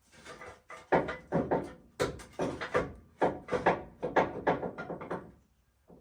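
Floor jack being pumped by its handle: a quick, even run of strokes, about three to four a second, that stops about five seconds in as the truck is raised onto jack stands.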